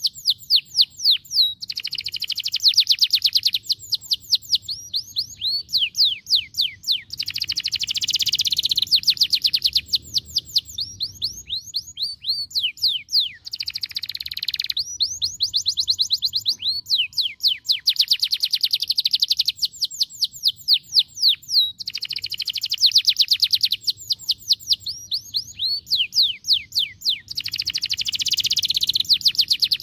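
Domestic canary singing: fast, rapid-fire rolls of sweeping notes in phrases of one to three seconds, each phrase a different trill, separated by short pauses.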